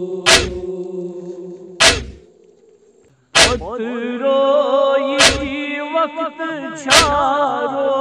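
Noha lament: sharp percussive beats keep time about every 1.7 s. A held chanted note fades out under the first beats, and after a brief pause a solo man's voice takes up the lament with a wavering vibrato.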